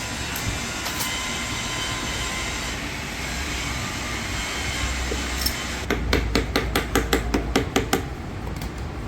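Rapid series of about a dozen sharp knocks, about six a second, starting about six seconds in, over a steady low rumble.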